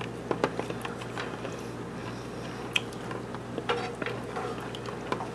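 A spoon stirring a thin dipping sauce in a plastic container, with scattered light clicks and taps of the spoon against the container's side as a splash of water is mixed in.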